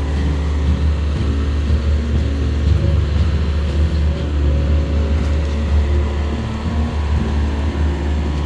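Excavator's diesel engine running steadily with a deep low hum, the note wavering slightly as it works.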